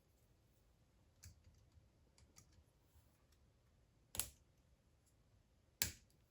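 Plastic K'nex model parts clicking as they are handled: a few faint clicks, then two sharp clicks about four and six seconds in.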